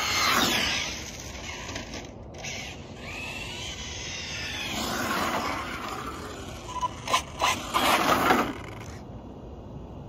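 Arrma Felony 6S RC car's brushless electric motor whining as it speeds past, its pitch falling as it goes by. It rises and passes again mid-way. A run of short loud throttle bursts comes near the end as it pulls up close.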